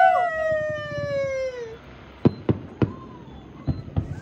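A long, high wail slides down in pitch and fades out before two seconds in. Then distant fireworks burst in five sharp bangs.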